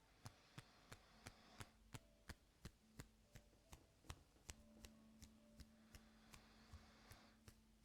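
Faint, even clicking about three times a second from ear-cleaning tools working close to the microphone, with soft brushing rustles twice and a low steady hum beneath.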